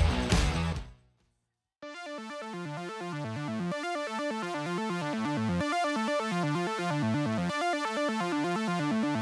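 Background music: a loud full-band passage cuts off about a second in, and after a short gap a fast arpeggio of short repeating electronic notes plays steadily.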